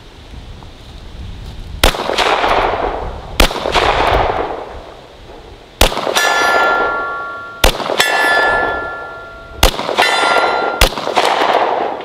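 Six rifle shots, spaced about one and a half to two and a half seconds apart, each followed by a fading echo. From the third shot on, each shot is followed by the ringing of a steel target being hit.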